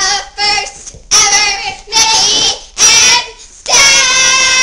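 Young girls singing loudly in a run of short high-pitched vocal outbursts, the last note held for over a second.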